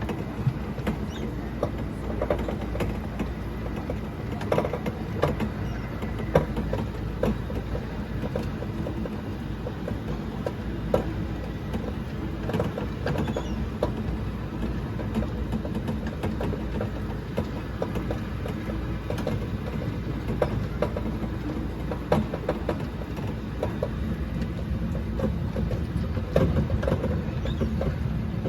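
Small mall ride train running: a steady low rumble with frequent light clicks and knocks as the cars rattle, so loose it seems it might come apart.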